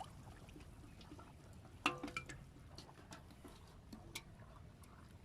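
Scattered small drips and clicks of water, faint, with a brief pitched voice-like sound about two seconds in.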